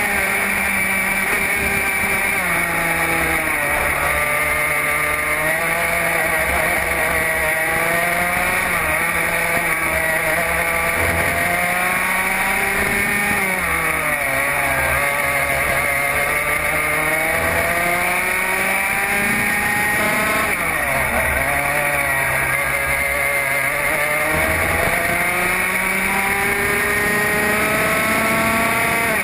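Racing go-kart engine at full race pace, recorded onboard, its pitch dropping as the driver lifts off for corners and climbing again on acceleration, several times over.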